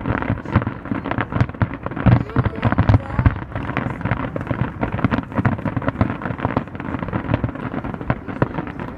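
Fireworks grand finale: a rapid, continuous barrage of crackling bursts and bangs, with heavier booms about two to three seconds in.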